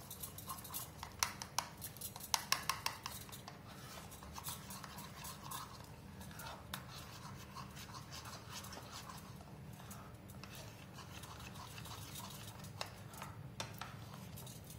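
A metal spoon beating a runny egg and gram-flour batter in a small ceramic bowl: quick clinks and scrapes against the bowl, thickest in the first three seconds and sparser after. A steady low hum runs underneath.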